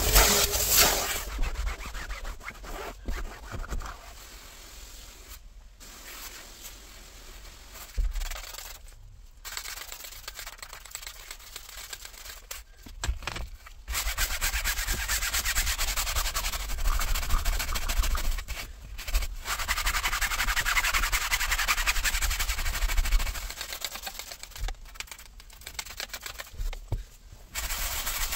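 A few squirts of a trigger spray bottle, then a stiff hand brush scrubbing cleaner into fabric seat upholstery: a rapid scratching rub that comes in spells with short pauses between them, loudest in the middle.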